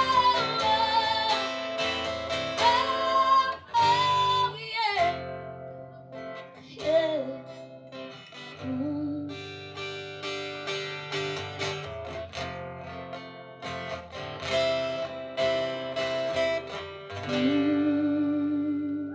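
Live music: acoustic guitar playing the closing bars of a song, with a woman's voice singing long, wavering notes over it.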